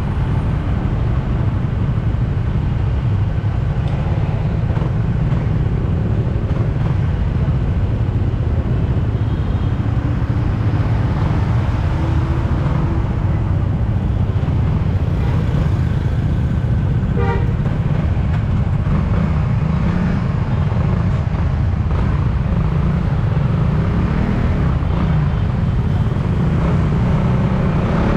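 Suzuki Raider 150 Fi motorcycle under way, its single-cylinder four-stroke engine running at a steady pace. A short horn toot sounds about seventeen seconds in.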